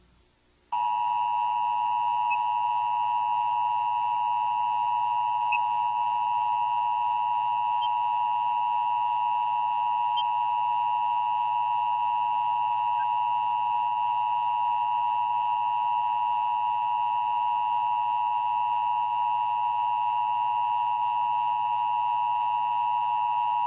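Emergency Broadcast System attention signal: the steady two-tone alert of 853 Hz and 960 Hz sounding together. It starts just under a second in and holds without a break.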